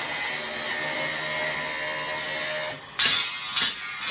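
Angle grinder cutting metal, running steadily under load, then winding down about two and a half seconds in, followed by two short bursts of the grinder near the end.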